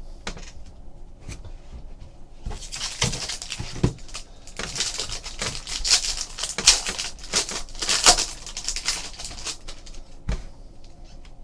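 Dense crinkling and clicking of a trading card pack and its cards being handled, busiest from about two and a half seconds in until about ten seconds in.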